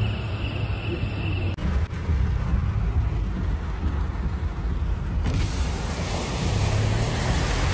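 Cars driving through a flooded street: a steady low rumble of traffic noise, changing abruptly twice as one recording gives way to the next.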